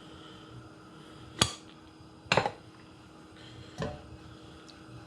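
Kitchenware being handled at the stove: a sharp clink about a second and a half in, a quick double knock a second later, and a lighter one near the end, over a steady low hum.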